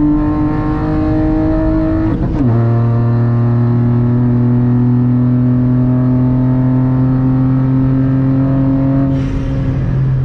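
Turbocharged three-cylinder engine of a Stage 3 remapped VW up! TSI pulling hard under full throttle, heard from inside the cabin, its pitch rising slowly. It upshifts about two seconds in and again near the end, each shift a sudden drop in pitch with a brief rush of noise.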